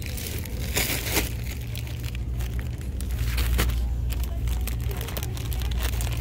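Plastic wrap on packs of Angel Soft toilet paper crinkling and crackling as the packs are handled, loudest about a second in, over a steady low rumble.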